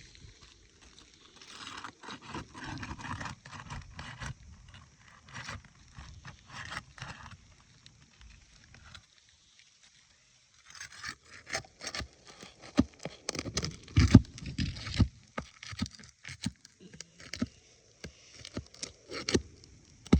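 A tool being worked under asphalt roof shingles to pry up the nails, scraping and clicking against the gritty shingles in irregular bursts. It stops for a second or two about halfway, then comes back louder with sharper knocks.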